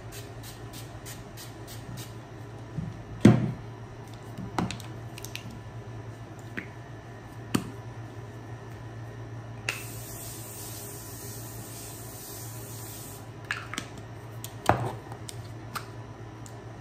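Makeup setting spray misted onto the face: a quick run of short pump sprays, about four a second, at the start. About ten seconds in comes one continuous spray of about three and a half seconds. Between them, and near the end, sharp knocks of bottles being handled.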